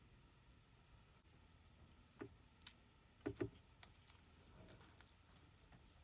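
Faint, scattered small clicks and taps of hand tools and parts being handled during a phone screen repair, including a quick double tap about halfway through, over a near-silent room.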